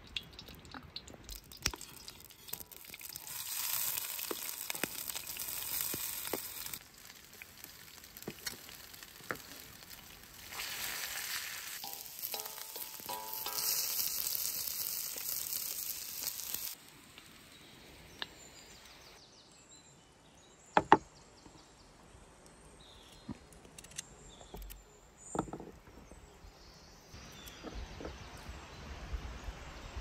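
Butter and oil sizzling in a steel wok over an open wood fire, in two loud stretches; in the second, sliced onions fry as they are stirred with a wooden spoon. After the sizzling stops, a couple of sharp knocks.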